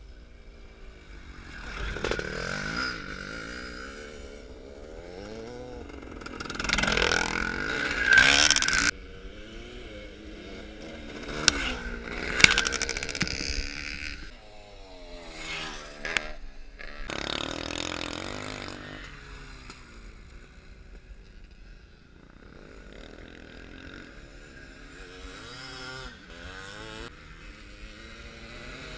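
Classic twinshock motocross bikes riding past on a dirt track, their engines revving up and down in several passes. The loudest pass comes about seven to nine seconds in and cuts off suddenly, and a few sharp knocks come around twelve seconds.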